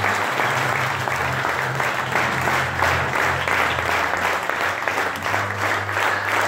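A crowd applauding, many hands clapping densely throughout, with low bass notes of music underneath.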